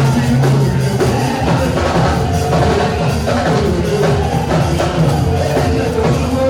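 Loud intro music with a steady drum beat.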